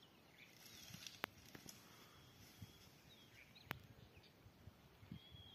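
Quiet bush ambience with faint, scattered bird chirps and short whistles. Two sharp clicks stand out, one about a second in and another about two and a half seconds later.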